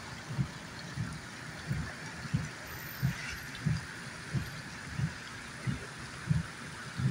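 Rain and running floodwater heard from inside a car as a steady hiss, with a soft low thump repeating evenly about every two-thirds of a second.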